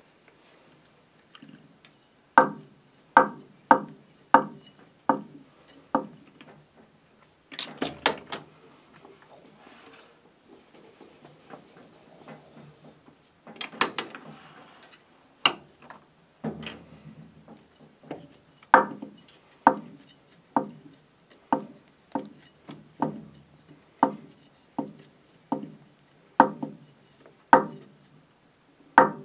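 Hand work on a metal lathe's tailstock, pressing a fitting into a 3D-printed plastic wheel held in the chuck: a run of sharp clicks, one every half to three-quarters of a second, broken by two short bursts of clattering about eight and fourteen seconds in.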